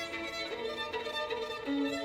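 Background film-score music led by sustained violin notes, the melody stepping to new held notes about half a second in and again near the end.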